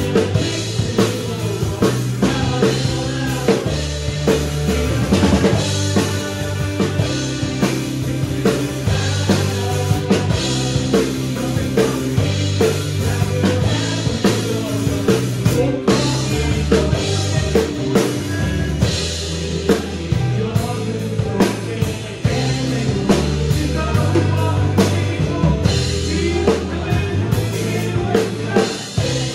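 Acoustic drum kit played with sticks along to a recorded worship-song band track: kick, snare and cymbals in a steady beat over sustained bass notes and chords.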